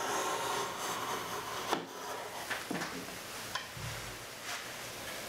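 Low-angle block plane skewed along the edge of a wooden box, shaving a chamfer with a rasping hiss for about the first two seconds. After that come a few light clicks and a soft thump.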